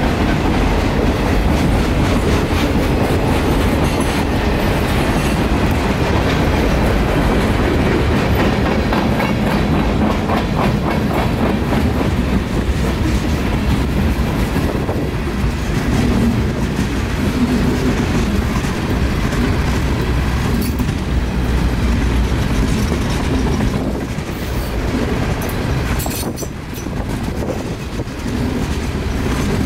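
Freight train of boxcars and refrigerated Tropicana juice cars rolling past close by: a steady rumble of the cars, with wheels clacking over the rail joints. It turns briefly quieter near the end.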